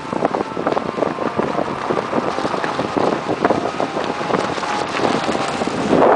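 Vehicle on the move: steady road noise full of quick rattles and knocks, with wind on the microphone.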